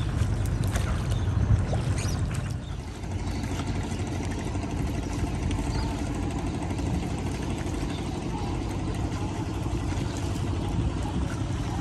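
A boat's engine running steadily on the river, with water noise around the hull.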